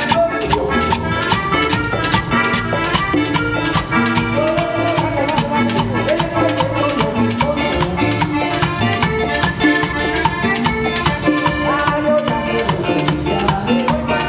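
Live tropical dance band playing: timbales and cymbal strikes keep a quick, even beat over electric bass and guitar.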